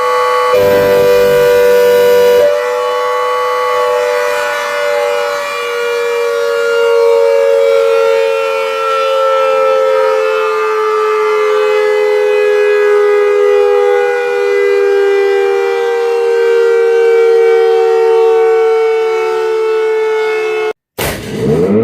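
Secomak GP8 air raid siren sounding a steady, loud tone whose pitch sags slowly, with a rushing noise over it for a couple of seconds near the start. Near the end the sound cuts out abruptly, and the siren starts again with a steeply rising wind-up.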